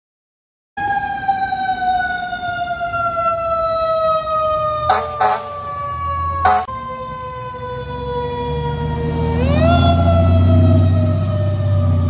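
Fire engine's mechanical siren winding slowly down in pitch for several seconds, then wound back up near the end. Three short horn blasts cut through it around the middle. A truck engine rumbles louder toward the end.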